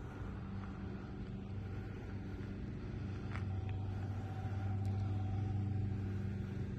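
Car engine running steadily, a low hum that grows a little louder about halfway through.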